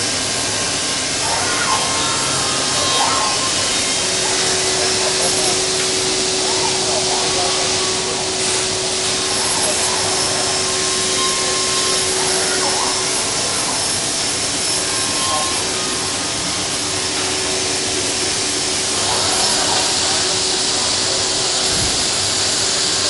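Bacci Master-Win 5-axis CNC machining centre cutting solid wood: the spindle and cutting tools run steadily through the timber with a continuous hiss, and a steady tone is held for several seconds in the middle.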